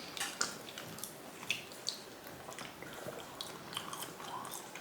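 Mouth chewing raw chicken: irregular wet clicks and smacks a few times a second.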